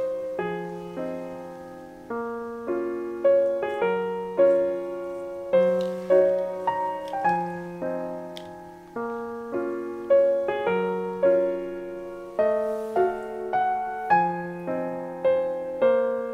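Background piano music: a gentle melody of separate notes, each struck and fading, over lower bass notes.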